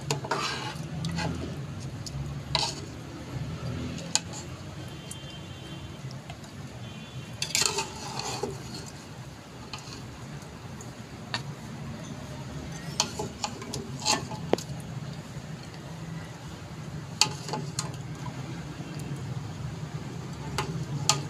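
A metal ladle scrapes and clinks against the inside of an aluminium pot as mutton curry is scooped out and served onto a ceramic plate. The strikes and scrapes come irregularly over a steady low hum.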